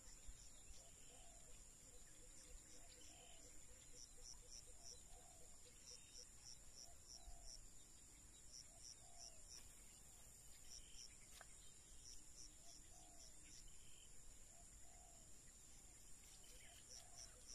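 Faint open-country ambience: a steady high insect drone with groups of short chirps, and a short low call repeating about once a second.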